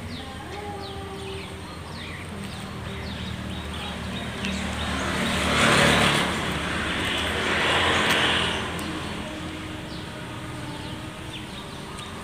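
Outdoor ambience with a motor vehicle passing, getting louder to a peak about halfway through and again shortly after before fading, over a steady low hum and repeated short high chirps.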